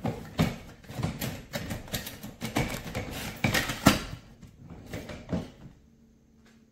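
A quick, irregular series of knocks and taps, hard objects being handled or bumped, which stops about five and a half seconds in.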